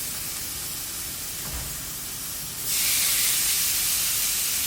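Raw steaks searing on a hot Blackstone flat-top griddle, a steady loud sizzle. The sizzle jumps louder a little over halfway through.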